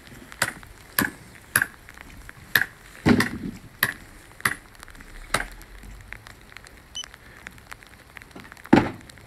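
Footsteps on a wet concrete slab, a step about every half second for the first few seconds, then fainter, with one louder thump near the end.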